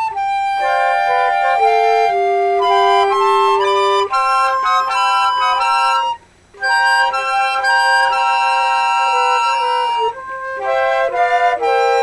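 Four concert flutes playing together in harmony, a multitracked flute quartet: several held notes and moving lines sound at once. All parts stop together for a moment about six seconds in, then come back in.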